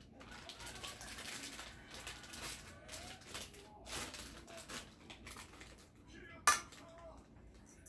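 Rustling and scraping of hands scooping macaroni salad out of a stainless steel stockpot, with one sharp metallic clink against the pot about six and a half seconds in.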